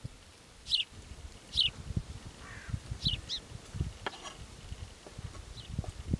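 A bird's short, high chirps, about five of them, each dropping in pitch, over a quiet outdoor background. Soft knocks and a few sharp clicks of a knife cutting dough on a wooden board come in between.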